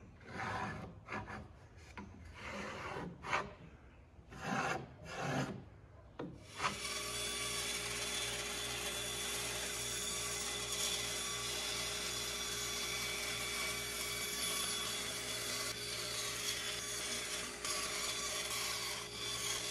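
A run of separate scratchy rubbing strokes on wood, then, about two-thirds of the way into the first third, a bandsaw running steadily as it cuts a curved line through a wooden floorboard.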